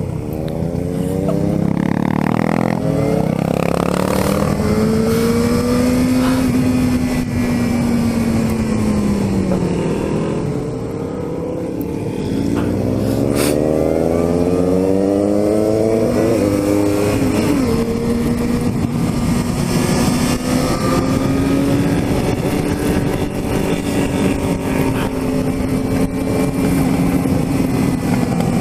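Yamaha XJ6's inline-four engine riding under way: it accelerates, eases off and falls in pitch for a few seconds around the middle, accelerates again with a quick gear change, then settles into a steady cruise. Wind noise on the microphone runs underneath.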